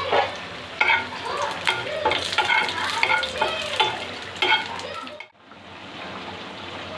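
Cumin seeds and dried red chillies sizzling in hot oil in a small frying pan, stirred with a spatula that clicks and scrapes against the pan: the tempering (phoron) for a curry. The sound cuts off sharply about five seconds in and comes back much quieter.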